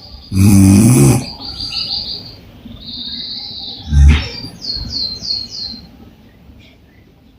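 A woman snoring through an open mouth: one loud snore about half a second in and a shorter one about four seconds in. Birds chirp between them, including a quick run of five chirps about five seconds in.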